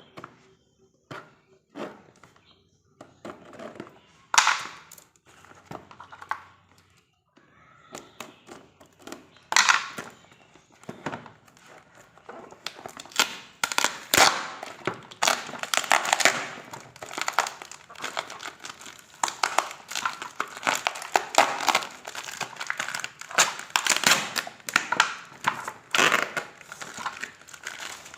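Packaging crinkling and rustling as it is handled and opened. At first there are scattered crackles and taps, then from about halfway the crinkling becomes dense and continuous.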